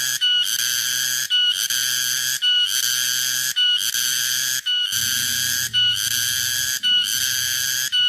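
Tonggeret (garengpung) cicada calling: a loud, shrill buzz repeated in phrases of about a second each, every phrase opening with a brief clear tone and separated by short breaks.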